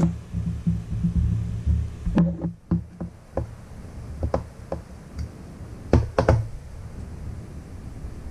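A hand hex driver turns the small screws that clamp a tire onto an RC crawler rim, pressed hard against the workbench. A low rumbling of pressure and turning runs through, with a scatter of sharp clicks and knocks from the tool and parts, and a tight cluster of them about six seconds in.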